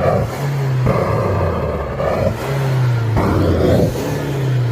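Range Rover 2.0-litre turbodiesel engine being revved hard, its pitch jumping up and sliding back down twice, with rushing exhaust noise on each rev. It is being revved to burn off the oil left in the exhaust after a turbo failure.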